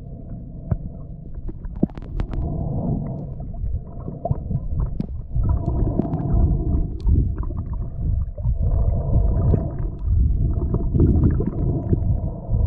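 Muffled underwater sound picked up by a submerged camera: a low rumble of moving water with scattered sharp clicks.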